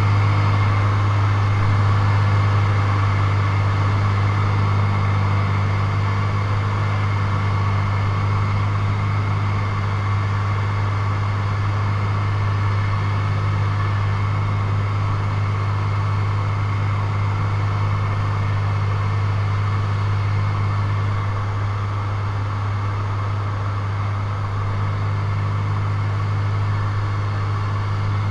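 Single-engine propeller plane's engine and propeller running at steady power, heard inside the cockpit as a loud, even drone with a deep hum.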